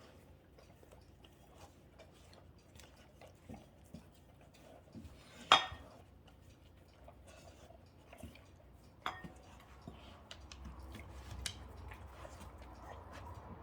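Golden retrievers eating dinner from their bowls: scattered small clicks of chewing and bowl clatter, with a sharp clank about five and a half seconds in and another near nine seconds.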